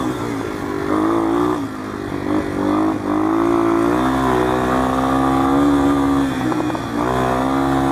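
1987 Yamaha TW200's air-cooled single-cylinder four-stroke engine running while the bike is ridden, its pitch rising and falling a little with the throttle, with a brief dip in level about two seconds in.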